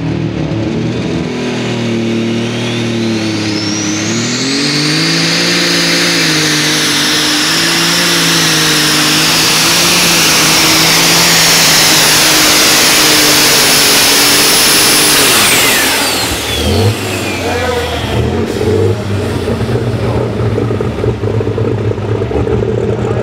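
Pulling tractor's engine running hard under load through a pull, with a high turbo whistle that climbs over a few seconds, holds, then falls away about two-thirds through as the engine backs off at the end of the run. The engine then runs lower and rougher.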